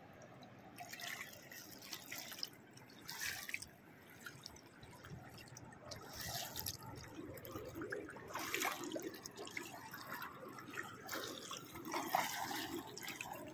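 Shallow seawater splashing and sloshing in irregular bursts as people wade through it, louder about six seconds in, again a couple of seconds later, and near the end.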